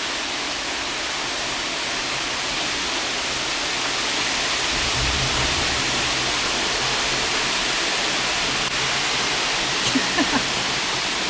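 Heavy rain pouring steadily in a severe thunderstorm, with a brief low rumble about five seconds in.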